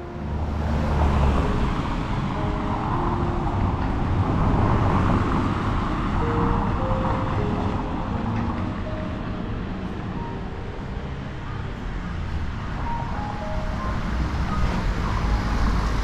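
Street traffic ambience: a steady wash of road noise with a low rumble, growing louder toward the end as a vehicle draws closer.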